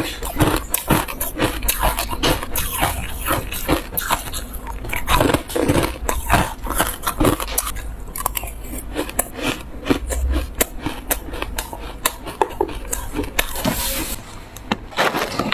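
Ice coated in dry buckwheat powder being bitten and chewed close to a clip-on microphone: a dense run of short, crisp crunches and crackles.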